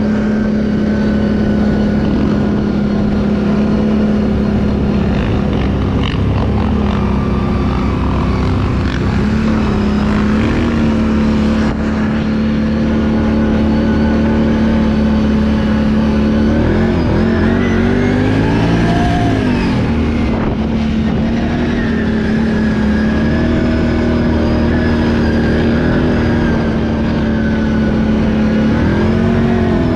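Can-Am ATV engine running steadily under way, with a held engine note. Just past the middle it revs up and back down over a few seconds, and it swells briefly again near the end.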